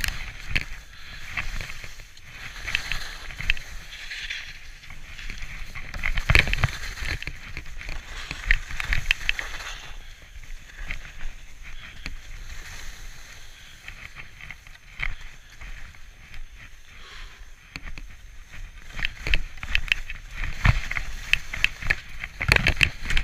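Skis sliding and scraping over snow, the hiss swelling in surges with each turn and dropping back on the gentler stretches.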